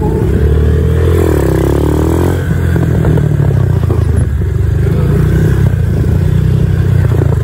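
ATV engine running under throttle, its pitch dipping and then rising between about one and two and a half seconds in.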